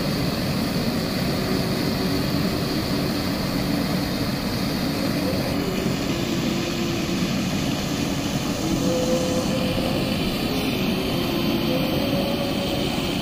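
Heavy rain and floodwater: a steady, even rushing noise.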